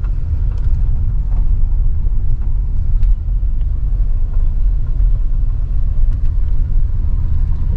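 Steady low rumble of a car driving, its engine and tyre noise heard from inside the cabin, with a few faint clicks.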